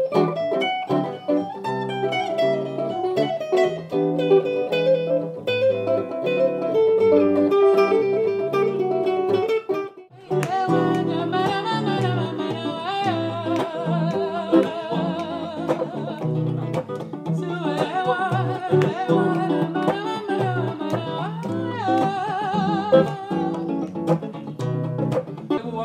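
Two archtop hollow-body guitars playing a picked instrumental passage; after a brief break about ten seconds in, a man starts singing with vibrato over the guitar accompaniment.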